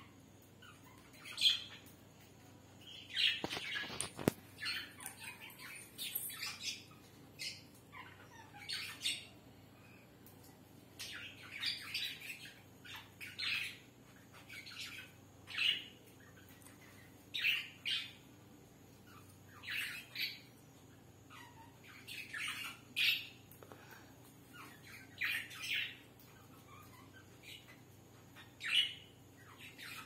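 Conure giving short, harsh squawks, one every second or two with brief gaps between them. There is a sharp click about four seconds in.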